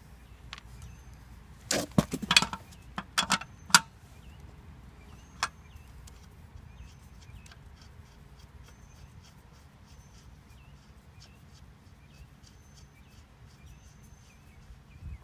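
Lug nuts and a lug wrench clanking as the nuts are worked off a car wheel: a quick run of sharp metallic clanks and clatter about two seconds in, then a single clank a few seconds later.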